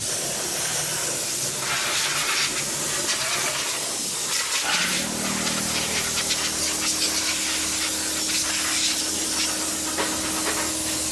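Compressed-air spray gun with a canister, hissing steadily as it sprays over an engine and chassis. A low steady hum joins about halfway through.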